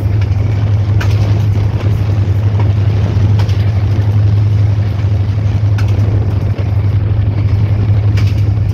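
Meter-gauge diesel locomotive running steadily at speed, a loud deep engine hum with rough running noise over it, and a few sharp clicks a couple of seconds apart.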